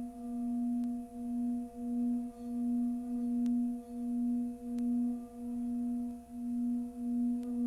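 Singing bowl sounding a sustained low hum with fainter higher overtones, its loudness pulsing in a slow wah-wah about one and a half times a second.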